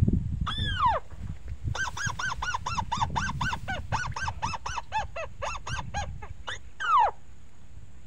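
Crake (burung tikusan) calls played from a small bird-caller speaker as a lure. One drawn-out call falls in pitch, then a fast run of short arched notes comes about three a second for several seconds, then another falling call, the loudest, near the end.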